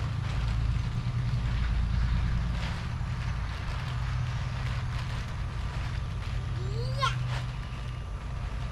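A steady low rumble with faint scattered knocks; about seven seconds in, a single short animal call rising in pitch.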